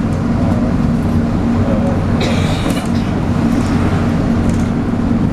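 MAN 18.240LF Alexander Enviro 300 bus heard from on board, its engine running with a steady droning hum and the whine that earns it the nickname 'hoover'. A brief higher-pitched hiss or squeal about two seconds in.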